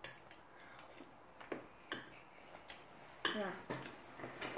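A few light clicks of a metal spoon against a small glass bowl of soggy rehydrated granola, spaced irregularly, then a short spoken "yeah" near the end.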